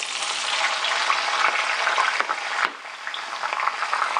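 Shredded Chinese kale leaves deep-frying in a wok of hot oil, just dropped in: a loud, dense sizzle and crackle as their water boils off. It eases a little after about two and a half seconds.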